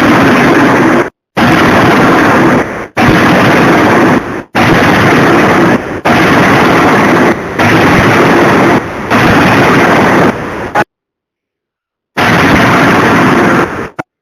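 Heavy forging machinery at work, recorded so loud that it is distorted into a harsh, even roar, in blocks of a second or so that start at full level and break off abruptly, with a longer silence about two thirds of the way through.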